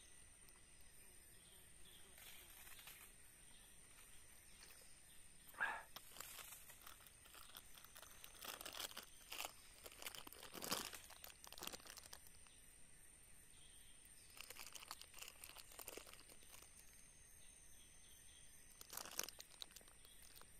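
Faint, scattered rustling and crunching in brief clusters, with a steady faint high-pitched tone underneath.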